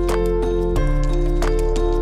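Background music with a steady beat and sustained melody notes.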